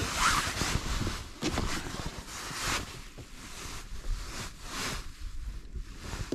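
Rustling and handling noise as a kayak's hatch lid is opened and hands work at the battery inside.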